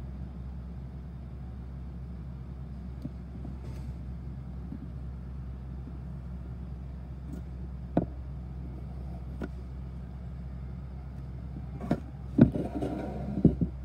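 Field sound of a soccer match: a steady low outdoor rumble, with a single sharp knock about eight seconds in and a few louder knocks close together near the end, like a ball being kicked.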